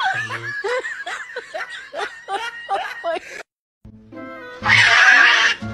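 A person laughing in short rising and falling giggles that stop abruptly about three and a half seconds in; after a brief gap, music begins, with a loud burst of noise about a second later.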